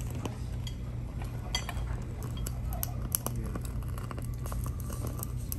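Cutlery and dishes clinking in scattered light taps over a steady low background hum.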